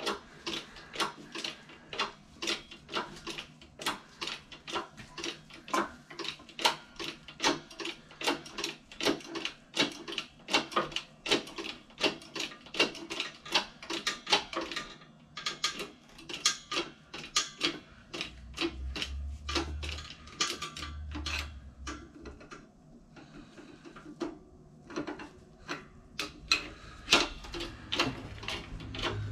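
Bottle jack of a hydraulic shop press being pumped by hand, clicking with each stroke of the handle at about three clicks a second, while it presses a cylinder liner into an engine block. After about fifteen seconds the clicks slow and become irregular, with a few low thumps.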